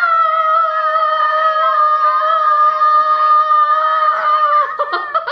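Children's voices holding one long, high sung note for about five seconds, wavering slightly in pitch, then breaking up into shorter wobbling sounds near the end.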